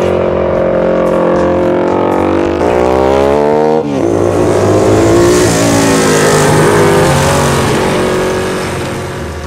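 Ducati 749S 90-degree V-twin through an unbaffled exhaust with slash-cut tips, ridden hard. The revs climb steeply about two and a half seconds in and drop sharply on an upshift near four seconds, then the engine pulls at high revs, loudest around five to seven seconds in, before fading toward the end.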